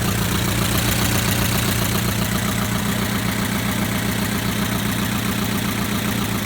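The 2.4-litre four-cylinder engine of a 2011 Chevrolet Equinox idling steadily with a fast, even ticking.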